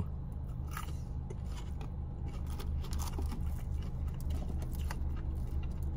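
A person chewing a breaded chicken nugget close to the microphone: faint, irregular soft clicks over a steady low hum in the car.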